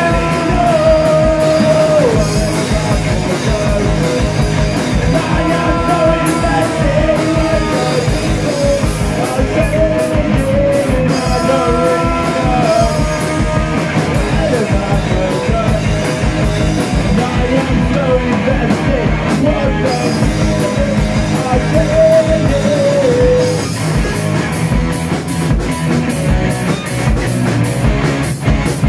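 Live rock band playing: a sung lead vocal over electric guitars, bass guitar and drum kit. The vocal drops out near the end while the guitars and drums play on.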